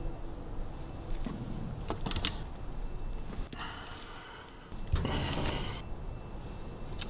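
Hand tools working the crankcase bolts of a Harley-Davidson WLC engine: a few light metal clicks about a second and two seconds in, then a short rustling scrape about five seconds in, the loudest sound.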